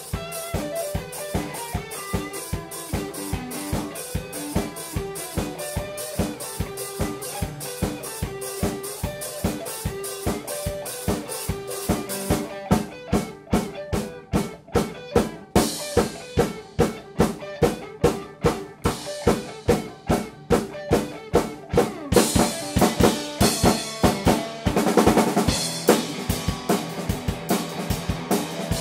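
Live improvised jam on drum kit, guitar and keyboard: the drums keep a fast, steady beat of bass drum, snare and rimshots under held guitar and keyboard notes. The drum hits get louder about halfway through, and cymbals wash over the band near the end.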